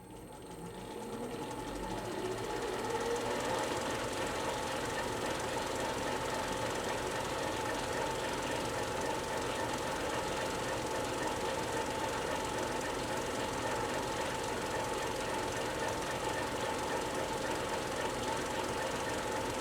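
Old cinema projector starting up: its motor winds up to speed over the first two or three seconds with a rising whine, then runs steadily with a rapid, even mechanical clatter.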